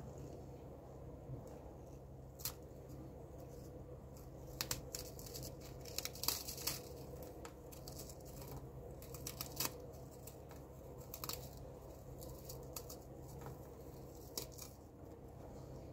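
Crisp Lotus Biscoff caramelised biscuits snapped and crumbled by hand: scattered sharp snaps and crackles, coming in clusters, with the loudest run about six seconds in.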